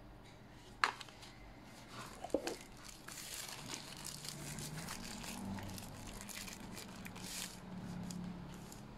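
Thin plastic protective bag crinkling as a power bank is slid out of it, with a sharp click about a second in.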